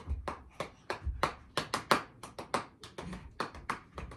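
One person clapping hands in a steady rhythm, about three claps a second.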